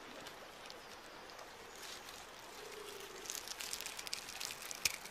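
Robber crab tearing into a red crab's shell: scattered crackling and clicking that thickens in the second half, with one sharp crack near the end.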